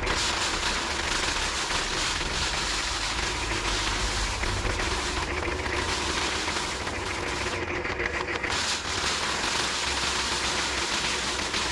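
Foot-pedal paddy thresher running: its spinning drum of wire loops beats rice stalks with a steady, rapid rattling clatter.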